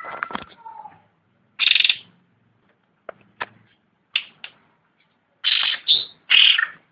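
Cucak rante songbird calling: a jumble of notes with a short gliding whistle at the start, then harsh half-second bursts, one near two seconds in and two close together near the end, with short sharp chip notes between them.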